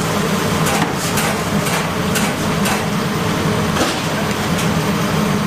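Steady mechanical hum of kitchen ventilation machinery running, with a few short clicks and clatter from utensils.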